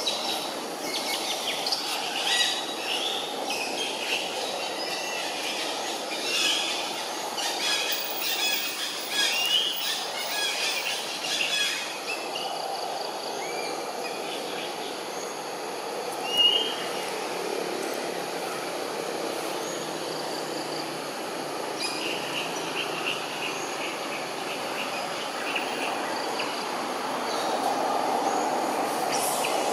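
Outdoor ambience: a steady background rumble with scattered short, high chirps and calls, thickest over the first dozen seconds and again in a run of repeated chirps about two-thirds through.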